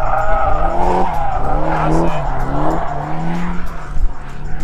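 A car drifting: its engine revs up and falls back over and over as the driver works the throttle, with tyres squealing and skidding on the tarmac.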